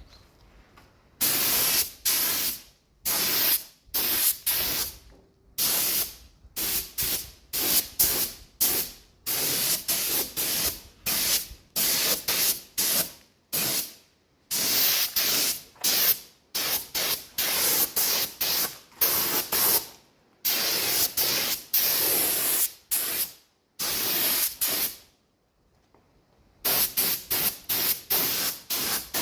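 Paint spraying onto a motorcycle frame, hissing in many short bursts of half a second to two seconds each with brief gaps between passes, and a longer pause of about two seconds near the end.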